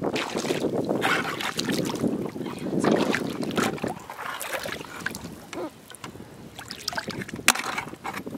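Shallow seawater sloshing and splashing around a groping hand and wading rubber boots. It is louder in the first half, and a few sharp clicks come near the end.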